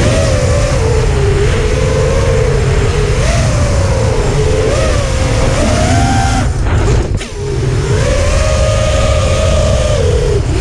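FPV freestyle quadcopter's brushless motors whining, the pitch rising and falling with the throttle, over heavy wind buffeting on the drone-mounted GoPro's microphone. The motors briefly drop off about seven seconds in, then spin back up.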